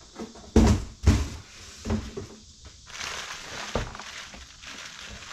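Cardboard boxes being handled on a wooden table: two loud thumps about half a second apart near the start, then lighter knocks and a scraping, rustling stretch as cardboard slides and a plastic bag of parts is moved.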